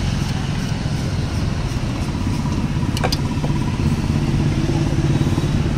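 Steady low engine rumble of road traffic, with a sharp knock about three seconds in, which fits the knife being set down on the wooden counter.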